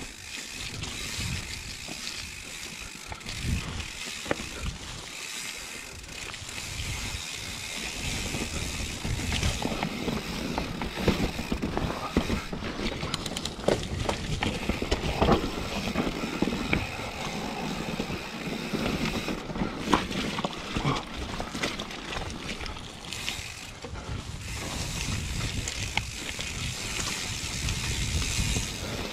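Mountain bike descending a muddy, rooty forest trail: tyres rushing over dirt, chain and frame rattling with sharp knocks over bumps, and the freehub ratchet clicking while the rider coasts.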